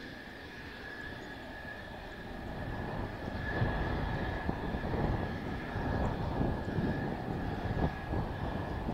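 Mitsubishi F-2B fighter's F110 turbofan running in dry thrust without afterburner: a steady high whine over a jet rumble that grows louder about three seconds in as the jet rolls down the runway. Wind buffets the microphone.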